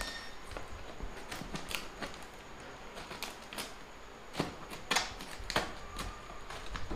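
Plastic packing tape on a cardboard box being slit open with a small pointed tool: short scratchy cuts and ticks at irregular intervals, the sharpest a little past the middle.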